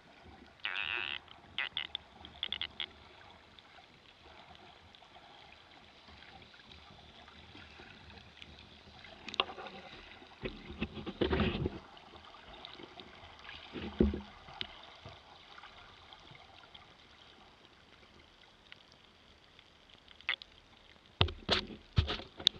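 Muffled water noise picked up by a camera held underwater: a faint steady hiss, broken now and then by short louder bursts of water movement and knocks, which come thickest near the end.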